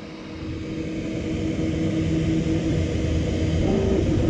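Flashforge Dreamer NX 3D printer printing: its stepper motors whine in steady tones that jump to new pitches as the printhead changes moves, over the hum of its cooling fans. It grows louder over the first couple of seconds.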